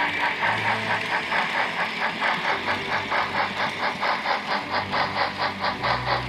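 Märklin model train running on the layout: a steady mechanical running noise with an even clicking about five times a second.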